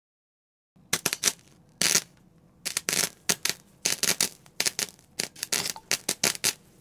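A rapid, irregular clatter of sharp clicks and rattles, coming in clusters, starting about a second in and stopping near the end.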